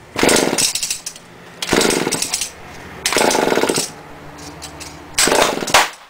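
Small two-stroke engine being pull-started on HHO gas from an electrolysis cell: four quick pulls of the recoil starter about a second and a half apart, each a short burst of the engine turning over without it catching and running on.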